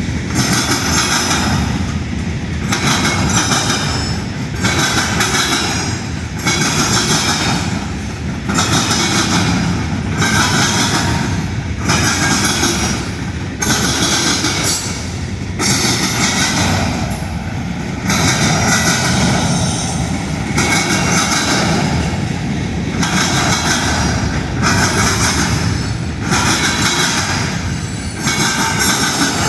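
Union Pacific train's cars rolling past at speed: a loud, rhythmic clatter of wheels over the rails that swells and dips as each car goes by, about every one to two seconds, with a steady high-pitched ringing from the wheels.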